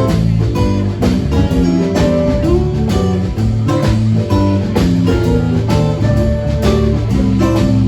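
Music with guitar over a steady beat and bass line.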